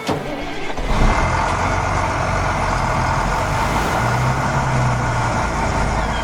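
Heavy vehicle engine running, a dense rough mechanical noise that starts abruptly, with a deeper hum swelling about four seconds in.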